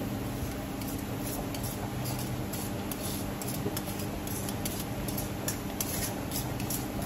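A metal spoon scraping and tapping against a metal mesh strainer as steamed mung beans are pushed out into a pot of hot water: a run of small clicks and scrapes over a steady low hum.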